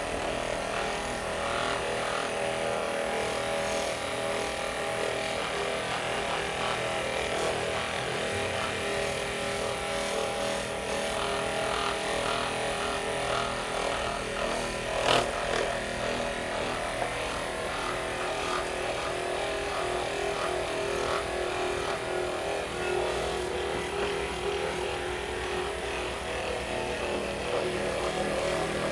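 Electric massager running steadily against the back muscles with a constant motor buzz, loosening the lower back before an adjustment. One short sharp knock about halfway through is the loudest moment.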